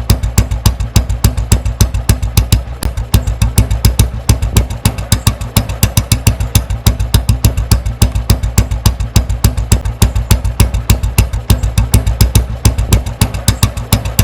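1990 Royal Enfield Bullet 350's single-cylinder four-stroke engine idling soon after a cold start: a steady thump of about six or seven beats a second.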